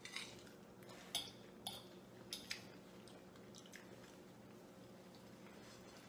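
Quiet eating sounds: forks tapping and scraping on ceramic plates and chewing, with about five sharp clicks in the first three seconds, then only a faint steady hum.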